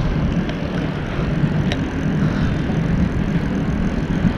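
Steady low rumble of wind and rolling noise on the microphone of a camera carried on a moving bicycle, with a couple of faint clicks.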